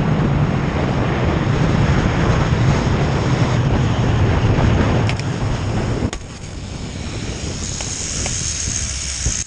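Wind rushing over a helmet-mounted action camera's microphone as a rider speeds down a long steel-cable zip line, with a steady high whine from the trolley running on the cable. A couple of sharp clicks come just before the rush drops sharply about six seconds in, as the rider slows into the landing.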